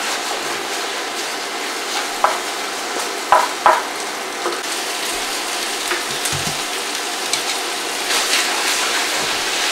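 Shrimp and rice noodles sizzling in a hot stainless-steel wok as they are stir-fried with a wooden spatula. There are a few short sharp knocks about two to four seconds in.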